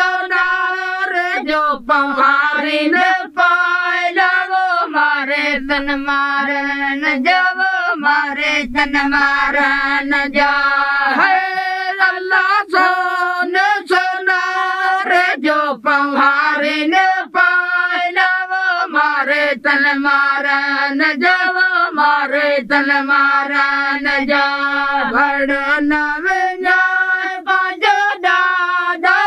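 Women singing unaccompanied in long, held notes that waver and step between pitches.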